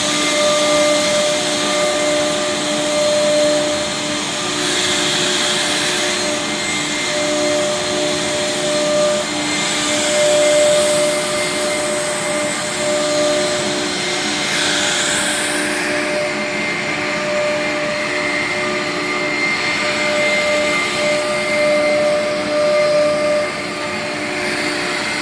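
A four-spindle CNC router with air-cooled spindles runs steadily, a whine of several steady tones over a rushing roar. A few brief, louder hissing swells come as the bit cuts through the board.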